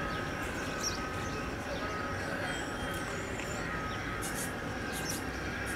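Steady, distant rumble of a Boeing 787-8's jet engines on its takeoff roll, with faint high chirps.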